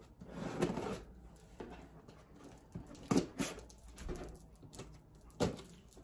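Scissor blade slitting packing tape on a cardboard shipping box: short scraping and tearing strokes, with a sharp knock near the end as the box flaps are pulled open.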